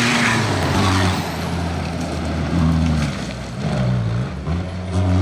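Off-road race car's engine revving hard, its pitch rising and dropping several times with throttle and gear changes, over a hiss of tyres on loose dirt.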